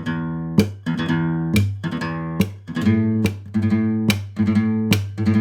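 Acoustic guitar played alone, a low bass note ringing under sharp percussive strums about once a second with lighter strokes between. The bass line sounds on the low strings, as if played on a bass guitar.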